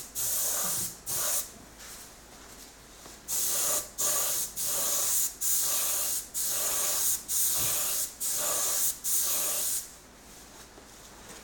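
Gravity-feed paint spray gun hissing in about a dozen short bursts, each under a second, one per spray pass. There is a pause of a couple of seconds early on, and the spraying stops about ten seconds in.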